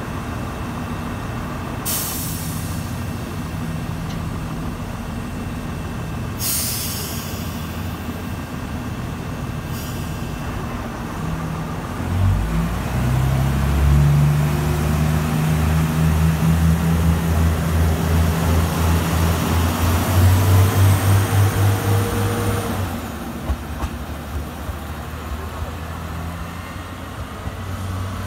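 Diesel railcar at a station: its brakes let out three sharp air hisses, then its diesel engine revs up and pulls the train away. The engine throbs, pulsing hardest a little past halfway, and eases off about five seconds before the end.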